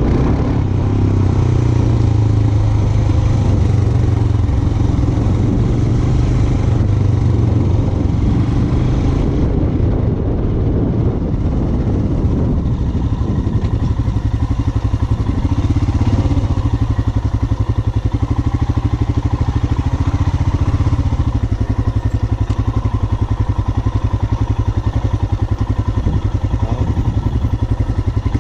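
Royal Enfield Himalayan 411 motorcycle engine running steadily at low revs while riding a rough off-road trail.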